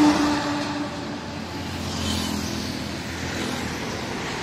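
Loaded multi-axle tanker truck passing close by, its engine and tyre noise loudest at the start and fading as it goes away. About two seconds in, a motorbike goes by.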